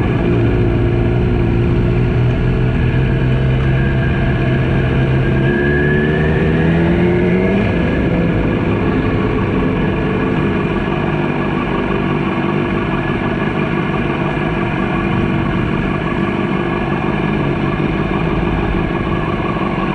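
Motorcycle engine running at low speed, its revs rising from about five and a half seconds in, then dropping back and holding steady.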